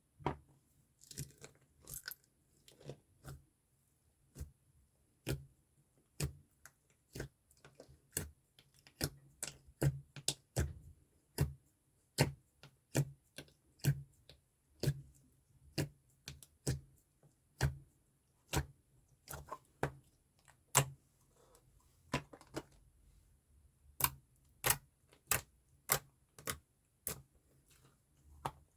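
Ice slime being squeezed and poked by hand, giving sharp crunchy clicks and pops, roughly two a second and unevenly spaced.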